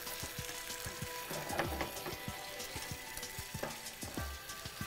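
Shrimp and vegetables sizzling in sauce in a nonstick frying pan over high heat, with a slotted spatula clicking and scraping against the pan as the stir-fry is tossed.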